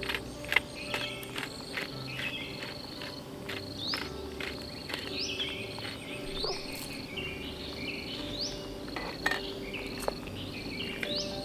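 Forest ambience of high chirping animal calls, with short notes at shifting pitches and several quick upward-sweeping chirps, mixed with scattered sharp clicks and pops.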